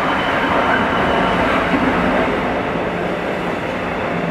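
Class 66 diesel-electric freight locomotive passing close, its engine drone under the rumble, followed by container wagons rolling over the rails.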